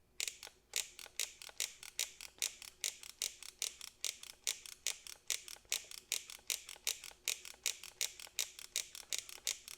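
Solder feed mechanism of a Ryobi 18V One+ auto-feed cordless soldering iron clicking steadily, about four clicks a second, as it advances solder wire through the nozzle.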